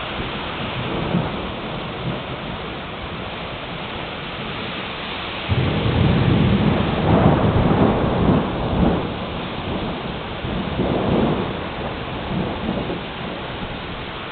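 Rain falling steadily in a thunderstorm. About five and a half seconds in, a loud low rumble of thunder starts suddenly and rolls on for a few seconds, swelling again near eleven seconds.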